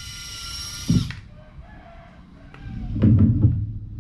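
Small electric motor of a model tractor's rear lift whining at a high, many-toned pitch for about a second as the rotavator is lowered. A low rumbling from the tractor's motors sets in about three seconds in.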